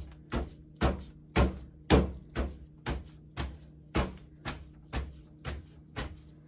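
A red plastic cup of wet concrete knocked over and over on a tabletop at about two knocks a second, a steady run of sharp thuds. This is the usual way of settling fresh concrete in a mold.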